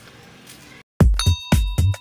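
Quiet room tone, then electronic background music cuts in abruptly about a second in, loud, with a steady beat of about two beats a second and a brief chime-like note at its start.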